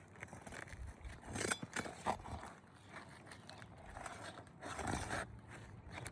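Roofing nails being worked out from under asphalt shingles: a few short scrapes and clicks, with a cluster of them a little before the five-second mark.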